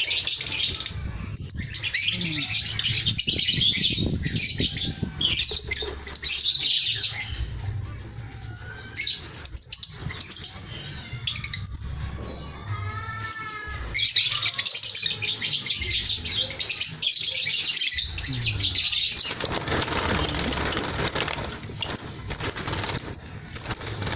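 Lovebirds chirping in dense, rapid chatter that comes in long stretches with short pauses, with a brief run of clearer calls rising and falling about twelve seconds in. Low rumbling and knocks from a hand handling the wooden nest box sit beneath.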